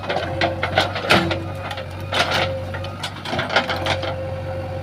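JCB 3DX backhoe loader's four-cylinder diesel engine running steadily with a steady whine, over irregular clanks and knocks from the working machine.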